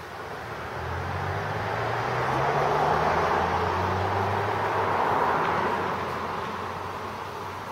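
A motor vehicle passing by, its engine and road noise swelling to a peak about three to five seconds in and then fading away.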